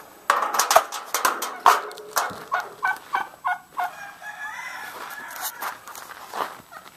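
Domestic fowl calling: a run of short, evenly spaced calls about four a second, then a longer wavering call. Before the calls, a few sharp crunches stand out as the loudest sounds.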